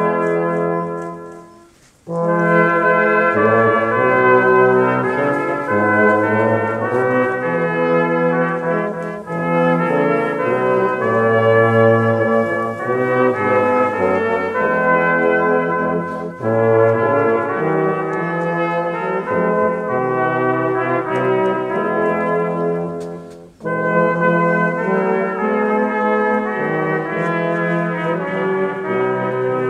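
Church brass choir of trumpets and low brass, a baritone among them, playing sustained chords in slow phrases of about seven seconds, with short breaks for breath between them.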